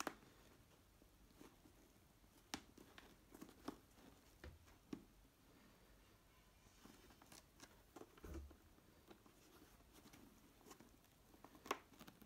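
Faint handling sounds: a dozen or so light, irregular taps and clicks from hands pressing a motorcycle helmet's padded liner back into its shell.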